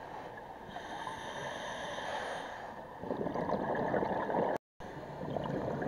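Scuba diver breathing through a regulator underwater: a thin hiss on the inhale, then a louder bubbling rush on the exhale about three seconds in. The sound cuts out for a split second near the end.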